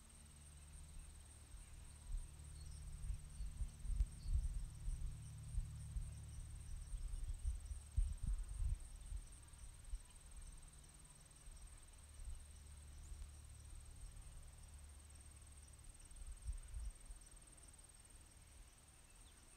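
Insects in the grass giving a steady high-pitched trill with faint chirps, under a low rumble and soft bumps close to the microphone that ease off after about fifteen seconds.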